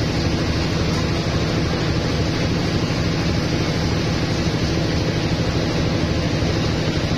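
Mobile rice threshing machine running steadily under load as rice sheaves are fed into it: a constant engine drone with a continuous rushing noise from the threshing drum over it.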